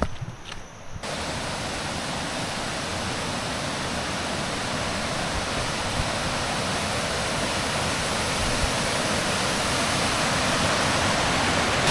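Steady rushing and splashing of a small waterfall pouring into a pool, starting abruptly about a second in and growing slightly louder.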